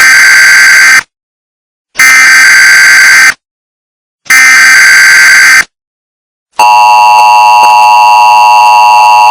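Emergency Alert System SAME header: three screeching digital data bursts with about a second of silence between each. About six and a half seconds in, the steady two-tone EAS attention signal starts and holds, announcing an emergency broadcast.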